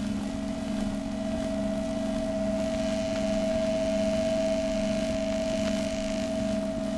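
Ambient lowercase drone music: a low, steady, hum-like tone with a fast flutter in it, under a higher sustained tone that swells toward the middle and then eases back.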